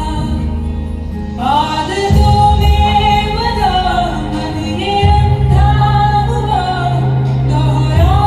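A song with a woman singing long, gliding notes over an accompaniment with a steady bass line; the voice comes in about a second and a half in.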